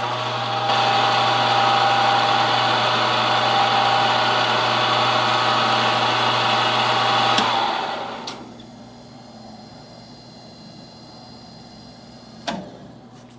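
Vertical milling machine running, its cutter milling across the mating surface of a cast-iron Harley-Davidson Ironhead Sportster cylinder head under power feed. About seven and a half seconds in there is a click and the machine winds down and stops, and a single sharp knock comes near the end.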